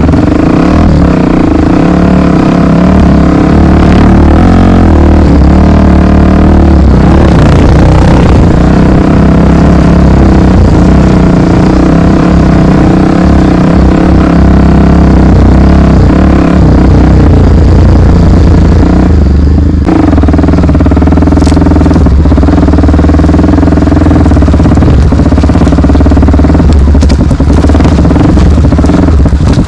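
Honda XR 250 Tornado's single-cylinder four-stroke engine running steadily while riding, with a brief drop in the engine sound about twenty seconds in.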